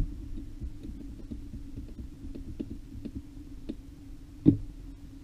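Light clicks and taps of small metal RC car parts being handled on a workbench, with one sharper knock about four and a half seconds in, over a steady low hum.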